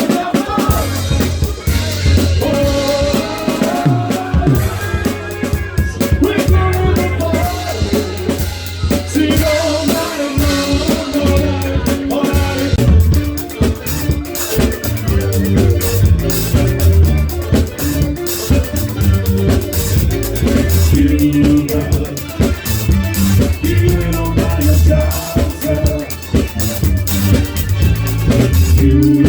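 A live soul band playing: drum kit close up, with bass, guitar and a singer.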